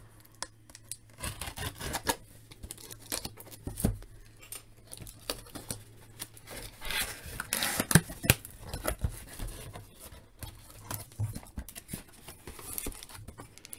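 Hands handling a cardboard mailer box and peeling off its clear packing tape: irregular crinkling, tearing and scraping of tape and cardboard, with a sharp tap about eight seconds in.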